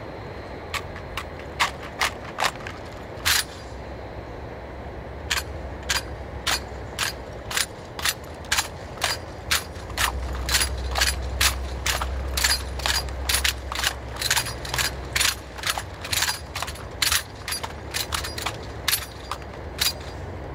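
Rifle drill: a long run of sharp slaps and clacks as hands strike and catch wooden-stocked rifles, coming about once or twice a second in uneven groups. A steady low rumble runs underneath and swells about halfway through.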